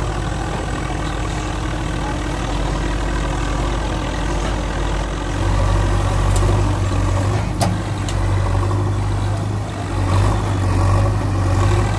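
Heavy diesel engine idling with a steady low hum that grows stronger about five seconds in.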